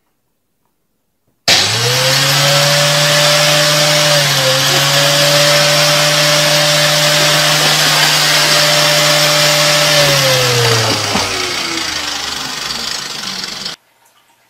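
A loud electric motor with a strong rushing hiss starts suddenly and runs steadily, then winds down with its pitch falling over about three seconds before cutting off abruptly.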